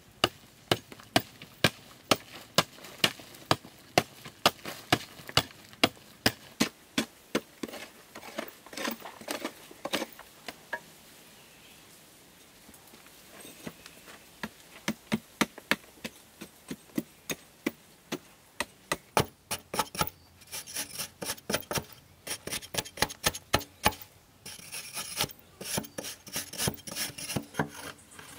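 A mattock striking hard, dry, stony soil in a long run of sharp blows, about two a second, with a short pause partway through. The blows come faster later on, and a scraping sound joins them near the end.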